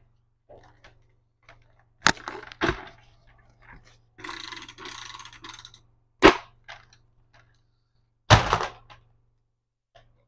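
Plastic toy dart blaster being handled: sharp plastic clacks and knocks about two seconds in, around six seconds and around eight seconds, with a stretch of rattling in between.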